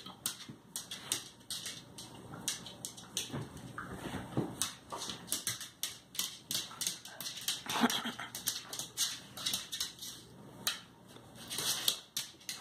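A dog and a cat play-fighting: quick clicking and scuffling of claws and paws on a vinyl floor, with a few short dog vocal sounds.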